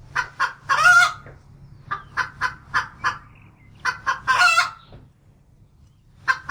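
Domestic hen clucking: runs of short clucks, each building to a longer drawn-out squawk. The pattern goes round twice and starts again near the end, over a faint low hum.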